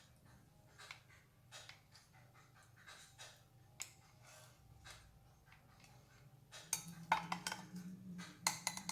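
Faint scattered clicks and light taps, then music fading in about seven seconds in.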